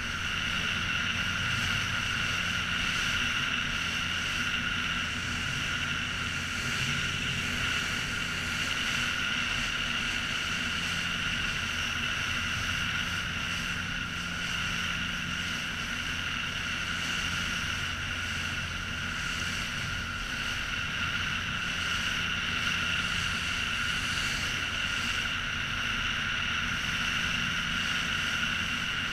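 Motorboat engine running steadily while the boat is under way, a constant hum with a steady higher whine over it.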